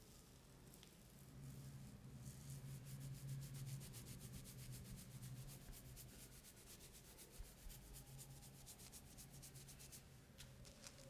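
Faint massage rubbing: hands rubbing in quick, even strokes, several a second, stopping about ten seconds in. A faint steady low hum runs underneath.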